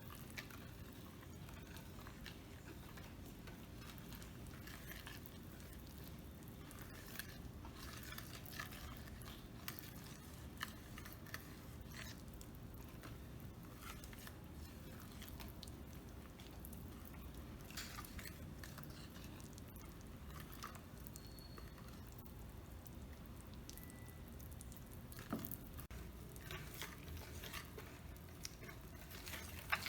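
Carrot cake batter being stirred by hand in a bowl: faint soft squishing with scattered small clicks of the utensil against the bowl.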